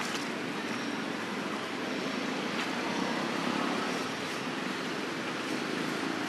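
Steady rushing outdoor background noise with a few faint clicks.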